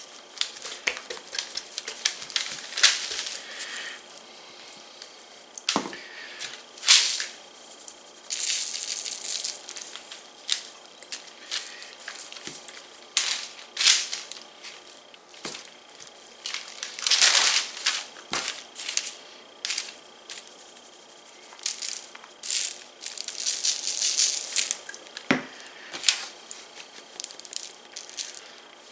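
Hands working seasoning over a whole raw chicken on a sheet of paper: irregular rustling and crinkling of the paper, shakes of dry seasoning from a shaker jar, and a few sharp knocks as the jar and bird are handled.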